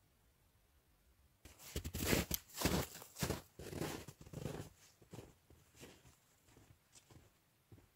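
Boots crunching through snow, with trekking poles, in uneven steps that start about a second and a half in, loud at first and getting fainter as the walker moves away.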